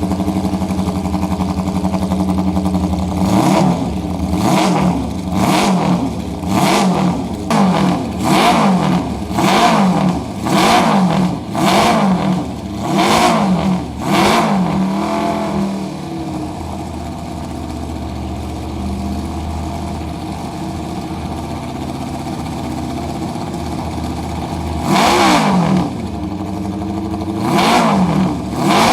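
Early-1970s Honda 500 four-cylinder race bike engine being warmed up, with a barking note. It idles, is blipped about once a second a dozen times, drops back to a steady idle, then is blipped three more times near the end.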